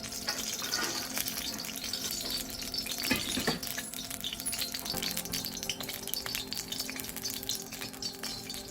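Cooking oil heating in a karahi, crackling faintly and continuously, with a steady hum underneath.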